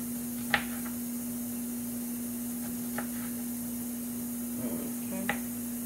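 A kitchen knife knocking on a bamboo cutting board while cutting up a jalapeño: three short, separate knocks, the loudest about half a second in. A steady low hum sits underneath.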